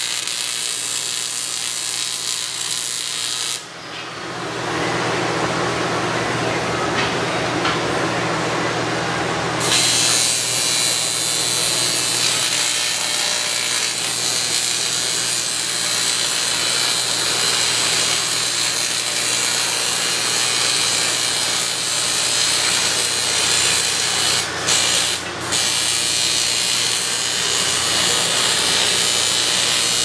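TIG welding arc on an aluminum frame, a steady crackling hiss over a low hum. It dips briefly about four seconds in and breaks off twice for a moment near the end.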